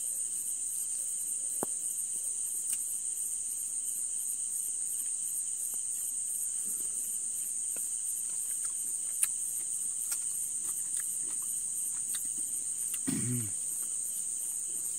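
Crickets trilling in a steady, evenly pulsing high-pitched chorus. A few sharp clicks sound over it, and near the end there is a brief low hum.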